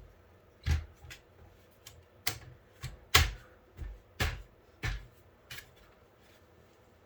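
Irregular sharp clicks and knocks, about ten in six seconds, of a liquid-cooler radiator being handled and test-fitted against a PC case's frame, the loudest a little after three seconds.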